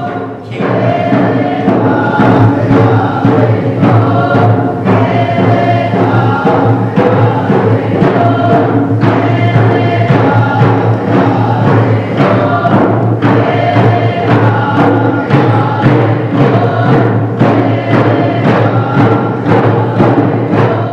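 Music: a group of voices singing together over a steady drum beat.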